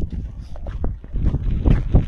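Wind buffeting the microphone in gusts of low rumble, with scattered short clicks and knocks over it.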